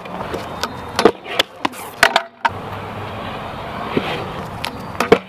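Stunt scooter on concrete: sharp clacks and knocks as the deck and wheels strike the ground, then the steady rolling noise of its small hard wheels over the concrete, with a few more clacks near the end.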